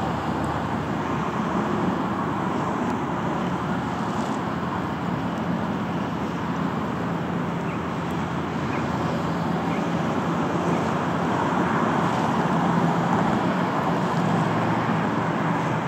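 Steady engine drone over open water from the low-flying ground-effect flying boat and the motor cruisers around it, mixed with wind and water noise. It grows a little louder about twelve seconds in.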